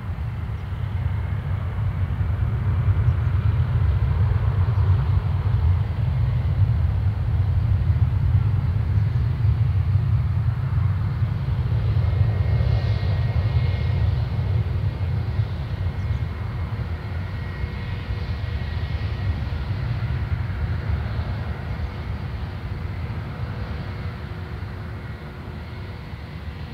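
Jet engines of a Boeing 737-800 (CFM56 turbofans) running at low taxi thrust as it lines up on the runway: a steady low rumble with a faint high whine through the middle, slowly fading near the end.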